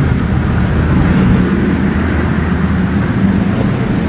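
Steady low machinery drone aboard a large container ship, with a constant low hum.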